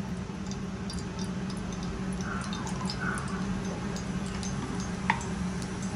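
Ghee heating in a steel kadhai over a gas flame: faint, scattered crackles and pops over a steady low hum, with one sharper tick about five seconds in.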